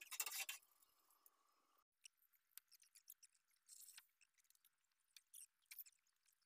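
Near silence with a few faint, scattered clicks and scratches. It opens with the tail end of music, which stops about half a second in.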